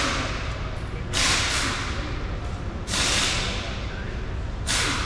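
Short bursts of hiss, each about half a second long, repeating about every one and a half to two seconds over a steady low rumble.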